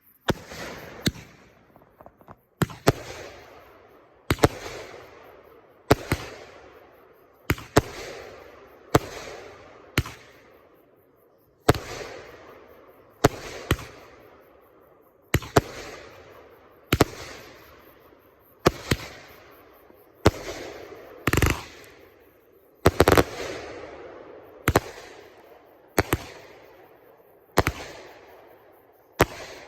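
Fireworks going off in a steady run of about twenty shots, roughly one every second and a half. Each shot is a sharp bang followed by a crackling tail that fades.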